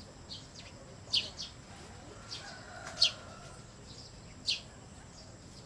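Bird chirping: short, sharp, high calls that each sweep downward, coming about once a second, the loudest about a second in and three seconds in.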